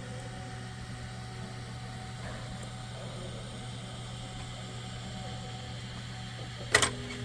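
Steady low machine hum, with a sharp double click near the end.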